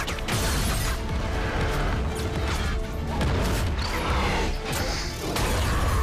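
Film battle sound mix: a dramatic music score under repeated crashing impacts and explosions, over a deep, constant rumble.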